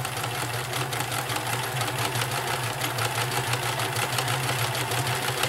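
Vintage all-mechanical Nelco free-arm sewing machine running steadily at speed, sewing a stretch stitch: rapid even needle ticking over a steady motor hum.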